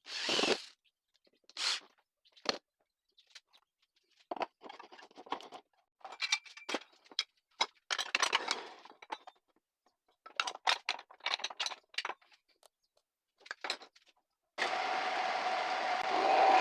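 Short, separate scrapes and knocks of wood and tools being handled. Near the end the homemade wood lathe's electric motor switches on and runs steadily with a hum.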